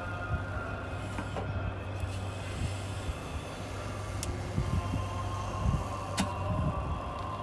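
Scattered clicks and dull knocks of a tire lever prying a motorcycle tire's bead off the rim, busiest a little past the middle, over a steady low background hum.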